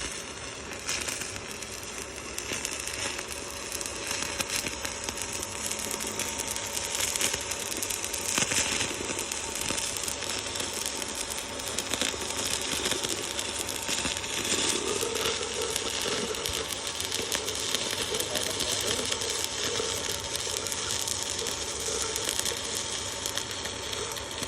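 Electric welding arc crackling and sizzling steadily along a circular seam, with a faint steady hum underneath.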